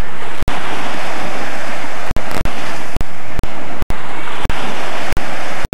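Small waves washing onto a sandy shore, a steady surf hiss. The sound cuts out briefly again and again, several times a second at moments.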